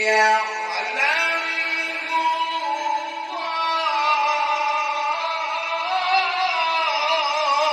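Melodic Quran recitation: a solo male reciter holds long ornamented sung notes that waver, gliding up about a second in and stepping higher partway through.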